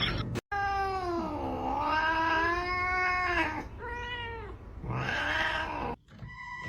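A cat yowling: one long drawn-out call that dips and then rises in pitch, followed by two shorter calls.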